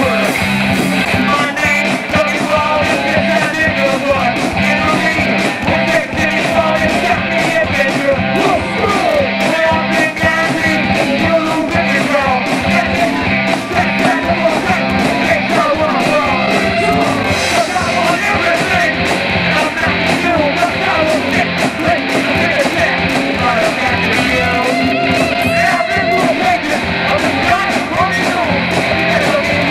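Rock band playing live at full volume: drum kit keeping a steady beat under electric guitars and bass, with a singer's voice over the band.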